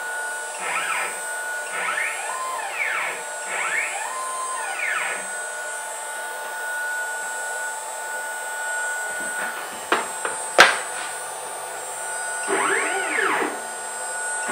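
Stepper motors of a Shark HD4 CNC router jogging the gantry from the handheld pendant: each move is a short whine that rises in pitch, sometimes holds, then falls as the axis speeds up and stops. About five quick moves come in the first five seconds and another near the end, over a steady high whine, with two sharp clicks about ten seconds in.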